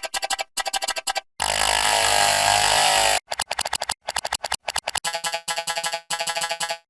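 A computer mouse click sound effect, run through audio effects so that it plays as fast trains of short pitched, buzzy pulses. From about a second and a half to three seconds in it is stretched into one continuous synthetic drone, then the pulses return with a changing pitch.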